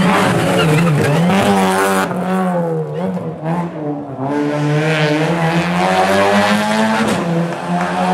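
Rally car engine revving hard, its note dropping and climbing again several times as the driver shifts gear and lifts off the throttle.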